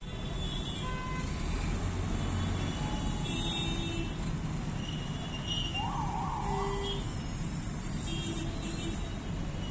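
Steady low street-traffic rumble with scattered short horn toots, and a warbling, siren-like tone about six seconds in.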